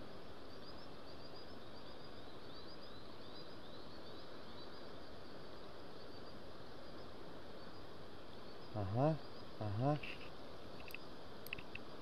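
Steady outdoor background hiss with faint, high, quickly repeated chirps through the first half. About nine and ten seconds in, two short rising hums from a man's voice, then a few light clicks.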